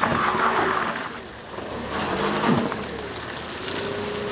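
A Mercedes-Benz sedan rolling slowly over loose gravel, its tyres crunching on the stones over the low note of its engine.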